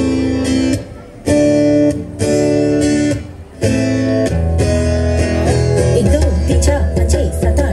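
Dance music played over loudspeakers: held chords that stop and start several times, then a fuller continuous passage with a steady low bass from about six seconds in.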